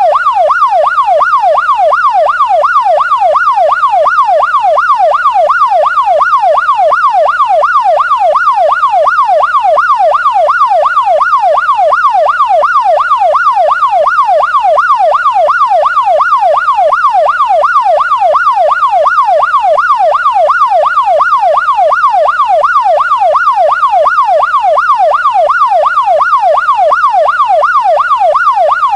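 Police siren on a fast yelp: one tone sweeps up and down evenly, a little under twice a second, without a break.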